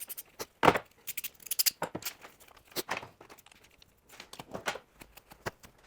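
Irregular clicks, knocks and rustling of objects being handled, with one louder knock under a second in.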